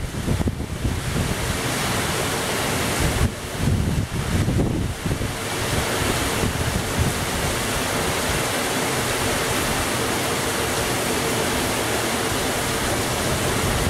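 Heavy rain pouring down, a steady hiss of rainfall, with gusts of wind buffeting the microphone during the first few seconds.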